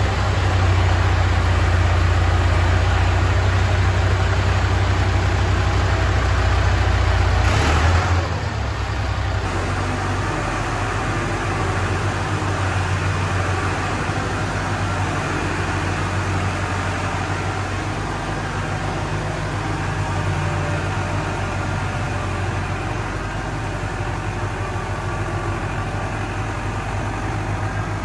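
International 784 tractor's four-cylinder diesel engine running steadily. About eight seconds in it drops to a quieter, steady running note as the tractor is driven out.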